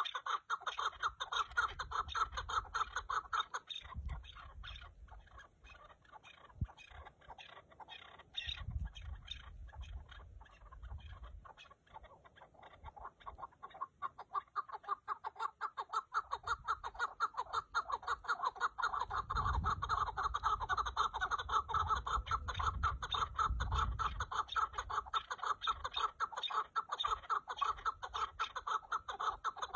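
Chukar partridges calling in a rapid run of repeated clucking notes. The calls fade for several seconds about a third of the way in, then come back strong from about halfway.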